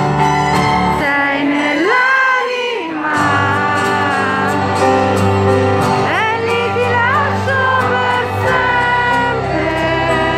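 Live pop ballad: a woman singing over acoustic guitar and piano, her held notes sliding up in pitch about two seconds in and again past the middle.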